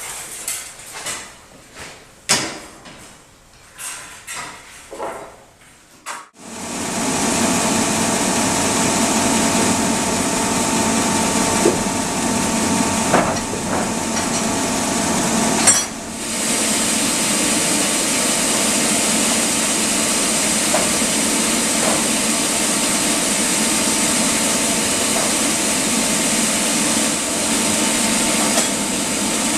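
Scattered knocks and clatter of wood being handled, then about six seconds in, sawmill machinery starts suddenly and runs with a loud, steady noise. It briefly dips about halfway through, then carries on.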